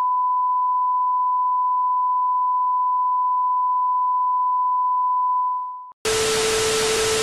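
Steady high-pitched test tone, the beep that goes with TV colour bars, held unchanged and then fading out about six seconds in. After a brief gap, a loud hiss of TV static with a steady lower hum starts and runs to the end.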